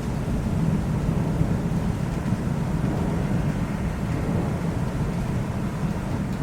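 Thunderstorm: a steady low rumble of rolling thunder over the hiss of rain, with no sharp claps.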